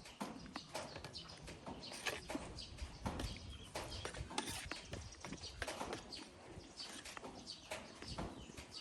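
Close-up eating noises: irregular clicks and smacks of chewing, over wind rumbling on the microphone.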